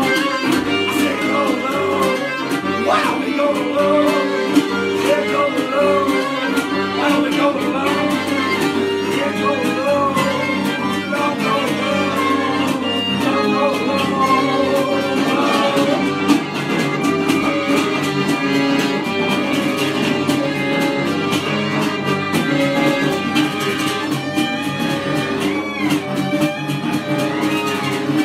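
Live acoustic music: a metal-bodied resonator guitar strummed under a man's singing, with another string instrument playing along.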